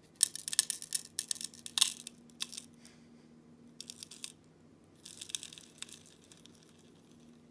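Gold flakes and small nuggets poured into a clear plastic weighing tray on a digital pocket scale, falling as dense runs of small clicks. There are three pours: a long one at the start, then two shorter ones about four and five seconds in.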